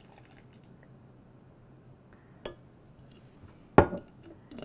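Cookie-and-milk mixture sliding out of a glass jar into a blender jar, with a light clink about two and a half seconds in and one sharp knock of glass on glass near the end as the jar is knocked against the blender.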